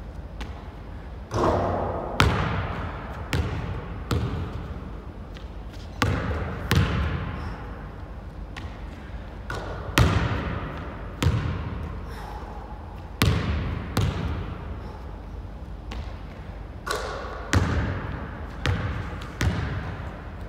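A basketball bouncing again and again on a hardwood gym court, some twenty sharp thuds at uneven spacing, each ringing on in the hall's echo.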